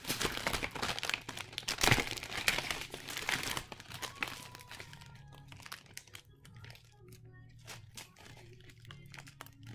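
Plastic magnetic building tiles clattering and clicking as they are handled, pulled apart and sorted, busy for the first few seconds and then thinning to scattered clicks.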